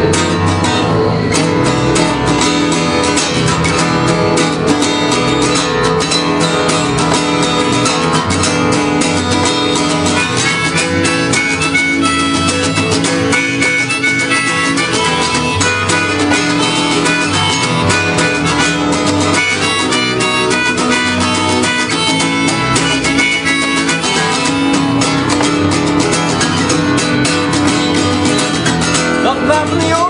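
Blues instrumental on harmonica and guitar: a harmonica melody over a steady guitar rhythm.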